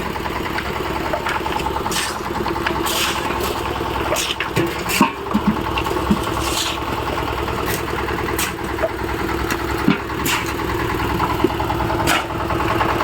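An engine on a road-concreting site running steadily, with scattered sharp clicks and knocks over it.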